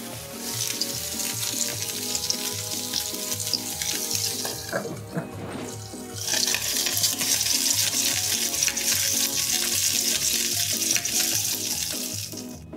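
Broccoli florets sizzling as they fry in a pan; the sizzle drops away for a second or so near the middle, then comes back louder. Light background music with a steady beat runs underneath.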